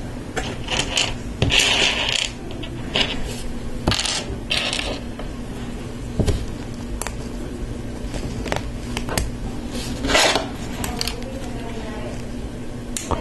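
Plastic LEGO Technic pieces clicking and rattling as they are handled and fitted together: pins pressed into lift arms, a few short clatters of parts.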